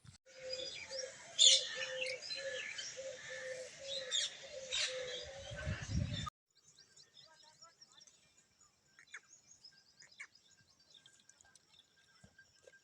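Birds chirping and calling, many short high notes over a repeated low note, for about six seconds. It then cuts off abruptly to much fainter, thin high chirps.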